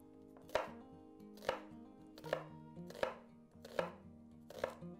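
Chef's knife slicing an onion into half rings and striking a wooden cutting board: six even chops, a little more than one a second.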